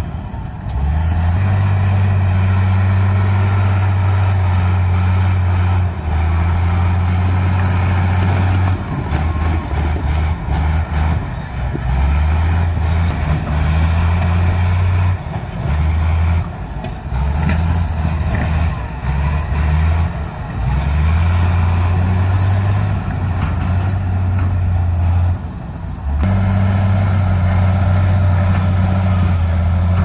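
Crawler bulldozer's diesel engine working under load while pushing rocks, a low drone that rises and falls in pitch and level every few seconds as the load changes.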